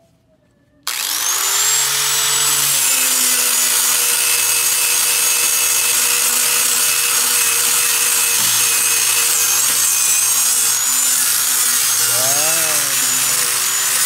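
Angle grinder fitted with a sanding disc, switched on about a second in with a rising whine as it spins up, then sanding the wooden edge of a speaker-cabinet cutout: a loud, steady gritty rasp, the motor's pitch dipping now and then as it is pressed into the wood.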